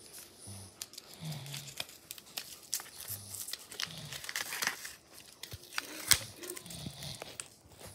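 Folded white paper bag crinkling and rustling as it is pulled open by hand, its blue tape seal tearing loose, with a run of irregular crackles. The sharpest crackle comes about six seconds in.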